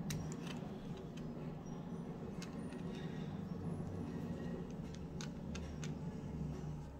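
Screwdriver working in the magazine catch of a Para Ordnance Warthog pistol: scattered light metallic clicks at irregular intervals, over a low steady hum.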